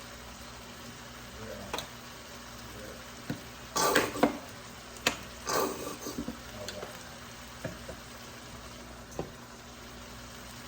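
A utensil knocking and scraping against a pan in a few irregular clatters, the loudest bunch about four seconds in, over a steady frying sizzle.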